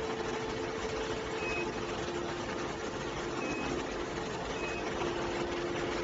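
Steady hum and fan noise of an air-cooled induction heating power supply running, with two steady low tones and three short, faint high beeps.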